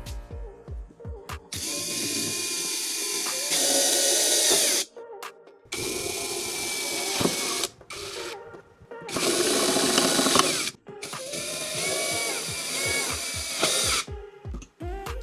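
An electric power tool running in four bursts of a few seconds each, with short pauses between them, over background music.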